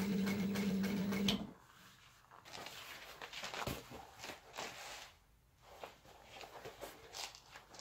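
Industrial sewing machine stitching faux-leather upholstery, running steadily for about the first second and a half and then stopping. After that the stiff material rustles and scrapes as it is turned and repositioned under the foot.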